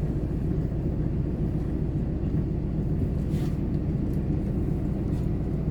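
Steady low rumble of a car driving, heard from inside the cabin, with a few faint brief hisses.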